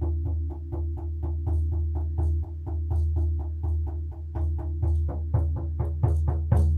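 Instrumental music: a fast, even pulse of short plucked or struck notes, about five a second, over a steady low drone.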